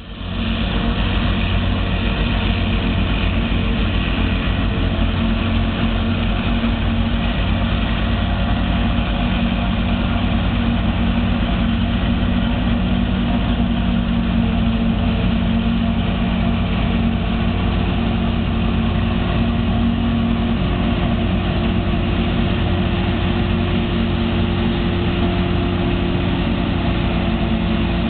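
Diesel engines of a John Deere 7400 self-propelled forage harvester and a Case tractor with a silage wagon running steadily during maize chopping, a constant heavy drone.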